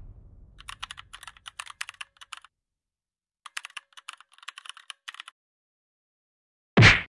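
Computer keyboard typing sound effect: two runs of rapid key clicks, each about two seconds long, with a pause between them. Near the end comes a brief, loud transition hit, the loudest sound here.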